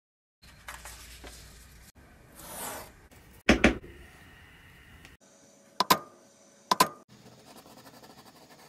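A hollow leather hole punch struck through a paper pattern into leather: a loud double knock about three and a half seconds in, then two sharper single strikes a second apart, amid quieter handling and scraping sounds.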